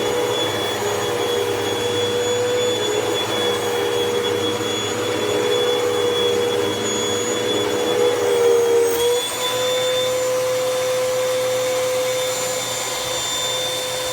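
Hoover Pet Max Complete bagless upright vacuum cleaner running with a steady motor whine. Its tone steps slightly up about nine seconds in.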